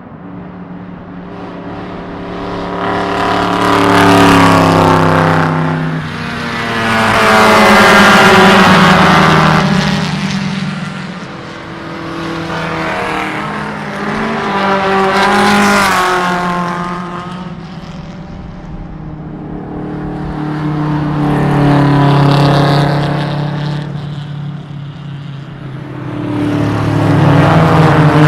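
Race cars going past one after another at speed, about six passes, each engine note swelling loud and fading away.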